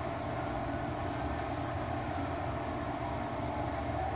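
A steady low rumble of background noise, with no single event standing out. Right at the end a siren starts to rise in pitch.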